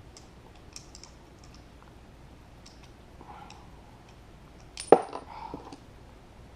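Small parts of a KJW M9 airsoft pistol being handled, with faint light clicks, then one loud sharp metal clack about five seconds in, with a brief high ring and a few smaller clatters after it.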